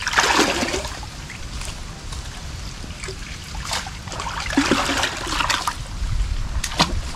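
Water splashing and trickling in shallow creek water, in two louder spells, one at the start and one a little past halfway, with a few small knocks.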